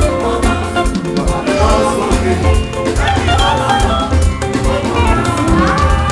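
Live church band music with drums, a regular low bass beat and held instrument notes, playing on between the sung lines of a Yoruba praise song.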